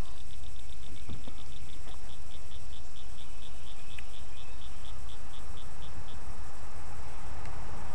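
Rhythmic high-pitched chirping from a small calling creature: quick at first, then slowing, and stopping about six seconds in. Under it runs a steady low rumble.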